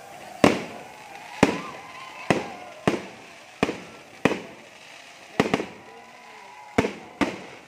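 Aerial fireworks shells bursting: about ten sharp bangs at uneven gaps of roughly half a second to a second, each fading off briefly.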